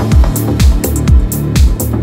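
Electronic dance music with a steady pounding kick-drum beat, about two beats a second, and crisp high percussion between the beats.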